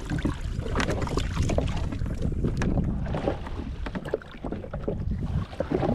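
Wind buffeting the microphone, with scattered knocks and rustles as a snapper is handled and laid along a measuring ruler on a jet ski seat.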